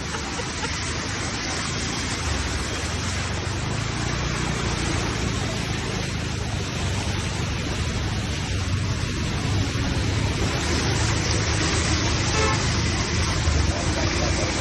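Steady rushing noise of heavy rain and running floodwater, with a low rumble underneath, growing slightly louder.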